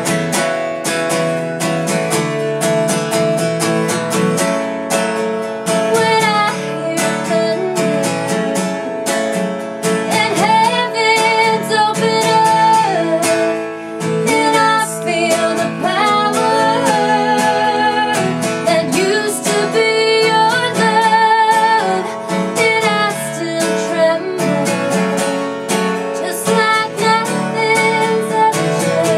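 A woman singing over strummed acoustic guitar, the voice coming in a few seconds in over the guitar.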